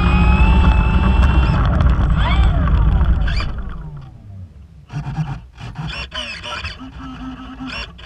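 Radio-controlled model plane's motor and propeller whining steadily at taxiing speed over the rumble of its wheels on tarmac, then throttling down, the whine falling in pitch over about two seconds and fading away. Afterwards only a few faint knocks.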